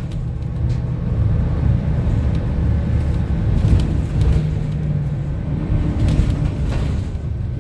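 Inside the cabin of a 2025 Gillig BRT 40-foot bus with a compressed-natural-gas engine, travelling along: a steady low engine and road rumble with a few light clicks and rattles.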